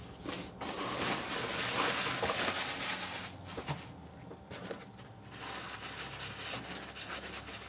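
Paper wrapping rustling and crinkling as a paper-wrapped plant bundle is handled and lifted out of a cardboard box. A louder stretch of crackling for about three seconds, a short lull, then softer rustling.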